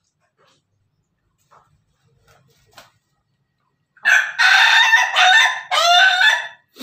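Ayam Ketawa ('laughing chicken') rooster crowing about four seconds in: a long crow of rapid, rising-and-falling syllables lasting over two seconds, broken by two short gaps, the laugh-like crow this breed is kept for.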